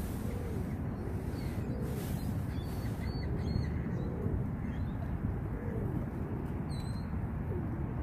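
Water birds on the harbour shore calling: a low rising-and-falling call repeated five times, about every second and a half, with a few faint higher chirps, over a steady low rumble.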